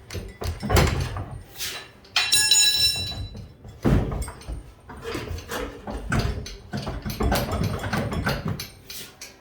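Irregular metal clunks and knocks as an engine hanging from an engine hoist is pushed and jostled into a car's engine bay, with a brief high metallic squeal or ring a little after two seconds in.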